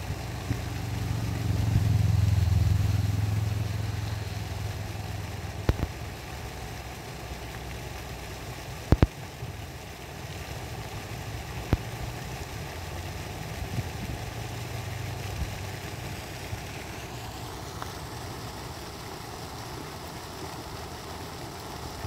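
Low, steady hum of an idling vehicle engine, which swells for a couple of seconds near the start and again about fourteen seconds in. A few sharp clicks come through in the first half.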